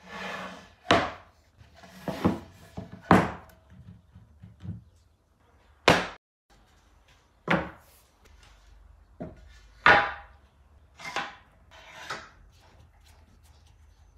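Pine boards and blocks set down and shifted on a plywood workbench top: a series of wooden knocks spaced a second or two apart, with some scraping between them.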